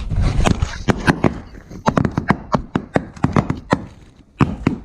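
A rapid, irregular run of sharp knocks and clicks, thinning out near the end.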